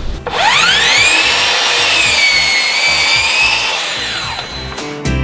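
Metabo KGS 18 LTX 216 cordless sliding mitre saw spinning up with a rising whine and cutting through a dressed pine board. The whine falls away as the blade winds down about four seconds in, and music comes in just before the end.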